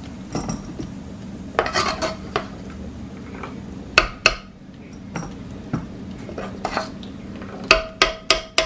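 Metal spoon clinking against a steel pot and a perforated steel rack as syrup-soaked mithai are lifted out and set down. The clinks come one or two at a time, then four in quick succession near the end, the last ones ringing briefly, over a low steady hum.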